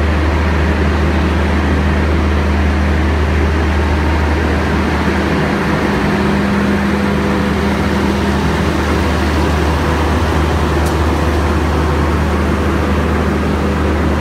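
Steady loud drone of the diesel generator sets in a passenger train's luggage, brake and generator car, running as the train pulls slowly out of the platform.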